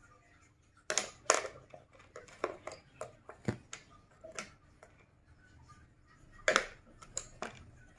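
Plastic pencil box and pencil being handled by a toddler: a string of irregular clicks, taps and knocks of plastic on plastic, loudest about a second in and again near the end.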